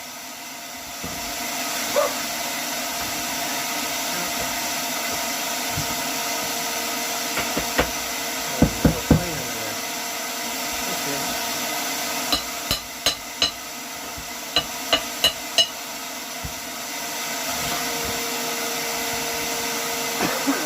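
Hammer blows knocking at old plywood flooring, in quick runs of three to five sharp strikes, over a steady whirring background noise.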